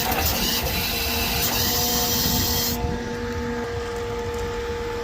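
Hydraulic machinery running under load, with a steady whine of several constant tones over engine noise. A loud high hiss cuts off suddenly about three seconds in.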